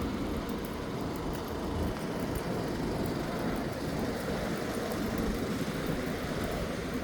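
Steady low rumble of outdoor background noise with an even hiss, no single event standing out.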